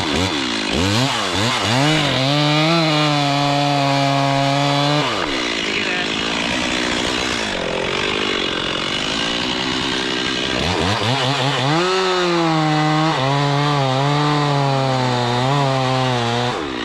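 Two-stroke chainsaw revving up and held at high revs cutting into the oak, wavering slightly under load, dropping back to a lower speed about five seconds in, then revved up and cutting again before easing off near the end.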